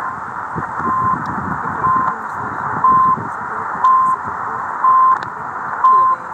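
CHU Canada's shortwave time signal on 3330 kHz, heard through a Degen DE1103 receiver's speaker in AM: a short high beep about once a second over steady static hiss and crackle, the station's second ticks.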